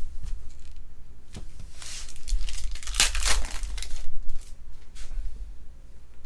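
A shiny foil Panini Prizm baseball card pack being torn open and crinkled by hand, a run of crackly rips that is loudest about three seconds in.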